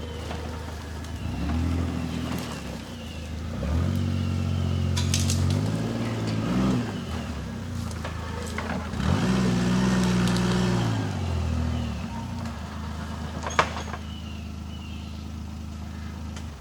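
Low-pitched engine of a Kawasaki Mule utility vehicle running, revving up and easing back three times, with a sharp click about three-quarters of the way through.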